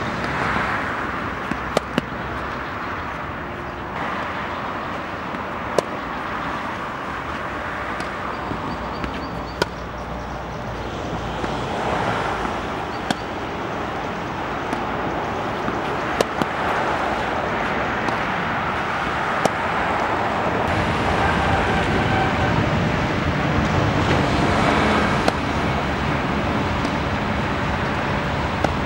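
Tennis ball struck by rackets and bouncing on a hard court during a baseline rally: sharp single pops every few seconds, some in quick pairs, over steady outdoor background noise.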